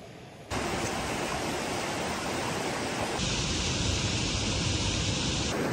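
Steady rushing of a mountain river, an even wash of water noise that starts abruptly about half a second in. A brighter hiss joins about three seconds in and drops out near the end.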